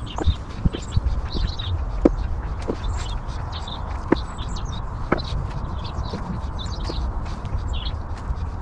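Hands sifting through potting compost in a wheelbarrow, with a few light knocks, the clearest about two seconds in. Small birds chirp repeatedly in the background over a steady low rumble.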